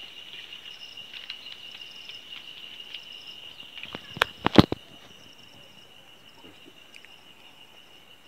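Steady high-pitched insect chirring, with a quick cluster of three or four sharp clicks or knocks about halfway through.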